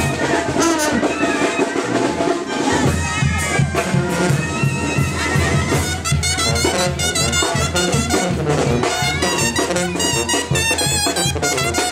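Marching brass band playing: trumpets over a tuba bass line and drums, with the low bass notes coming in about three seconds in.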